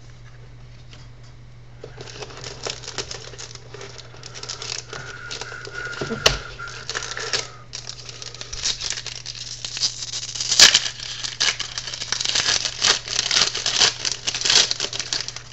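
Crinkling and rustling of a trading card pack being torn open and its cards handled: quiet for the first two seconds, then a busy run of crackles and small clicks, over a steady low hum.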